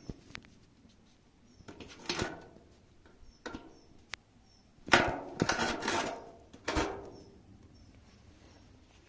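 A few knocks and clattering handling noises, with a sharp click about four seconds in and the busiest, loudest stretch of clatter about five to six seconds in.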